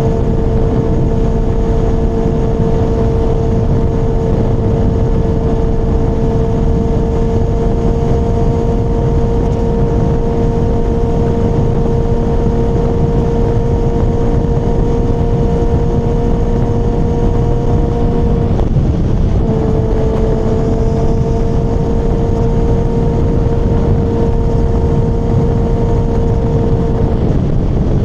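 Kawasaki ZX-6R inline-four engine running at a steady cruise on the move, a held engine note over wind rush. The note breaks off for about a second around two-thirds of the way through and again near the end, coming back a little lower the second time.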